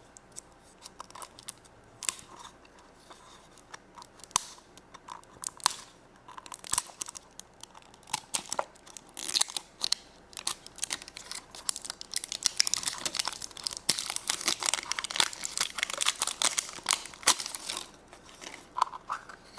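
A toy's wrapper being torn open and crinkled by hand: scattered sharp crackles at first, becoming a dense run of rustling and crinkling over the later part.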